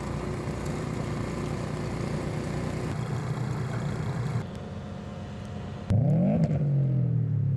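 Engine running, with an abrupt change about four and a half seconds in. Near six seconds an engine revs, its pitch sweeping up and down, then settles into a steady low hum.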